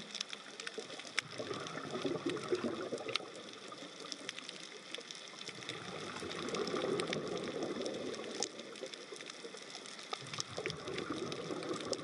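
Underwater reef ambience: a wash of moving water that swells about halfway through, with scattered sharp clicks and crackles.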